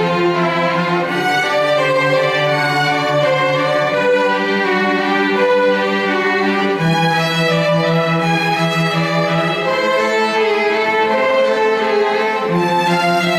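Live string ensemble of violins and cello playing, with long held notes and the bass line changing every few seconds.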